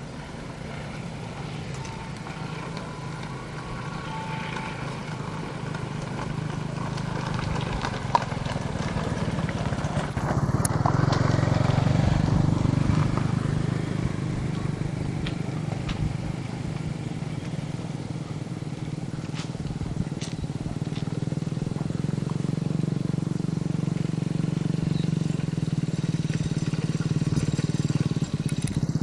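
Diesel locomotive engine running with a low, steady rumble that grows gradually louder as the train approaches.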